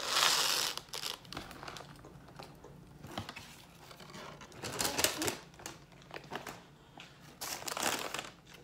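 Cardboard pizza box being opened and handled, with paper crinkling. There is a loud rustle right at the start, then further bursts about five seconds in and again near the end.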